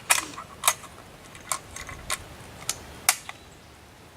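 A series of sharp metallic clicks, about seven at uneven intervals, from an M1A rifle being handled while the shooter works with it, a rifle he says is being stubborn.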